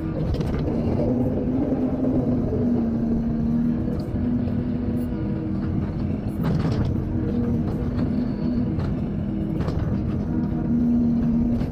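Excavator's diesel engine running steadily under load while digging, with a tone that comes and goes and three short knocks from the machine's work.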